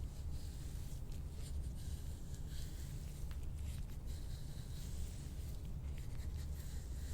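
Rubbing and scraping on the skin of a back during soft-tissue work: an irregular string of scratchy strokes over a steady low hum.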